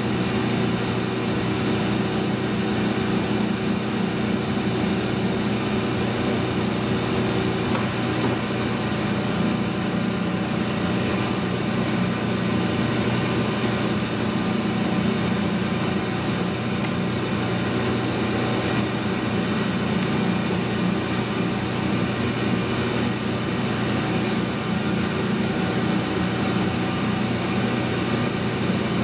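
A large engine lathe running steadily, its big four-jaw chuck spinning a drive-shaft yoke. A constant electric-motor hum sits under an even mechanical running noise.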